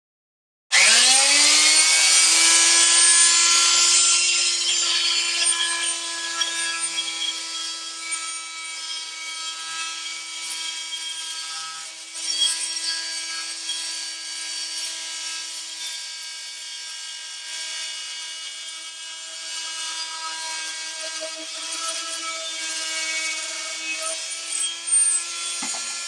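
Fein first-generation Multimaster oscillating multi-tool starting up, its whine rising quickly to a steady pitch. A fine-tooth metal/wood blade cuts through 3/4-inch PVC pipe, and the rasping of the cut over the motor is loudest for the first few seconds, then eases.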